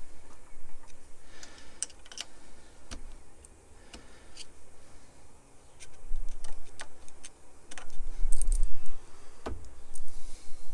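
Irregular light metallic clicks and taps of a screwdriver and steel parts being handled on a metal lathe's cross slide while the gib and its screws are set, with a few dull low thuds near the end.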